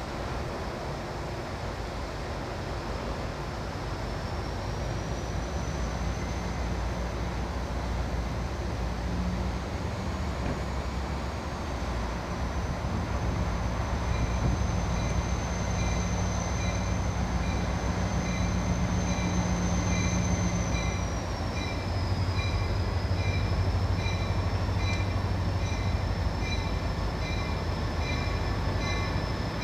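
Diesel-electric freight locomotive drawing slowly closer, its engine a steady low rumble that grows louder. A thin high wheel squeal wavers in pitch through the middle as the train takes the curve. In the second half a faint high ping repeats at an even rate.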